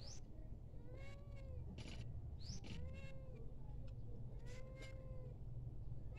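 Black-and-white domestic cat meowing three times, about two seconds apart, each meow rising and falling in pitch, the last one the longest.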